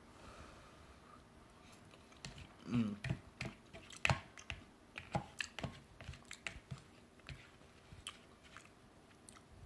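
A person chewing a mouthful of beef pot pie close to the microphone: irregular mouth smacks and clicks that start about two seconds in, are loudest soon after, and thin out near the end.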